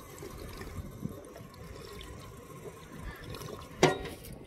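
Water from a station drinking fountain (bubbler) trickling as a man drinks from the stream. A sudden sharp knock comes a little under four seconds in.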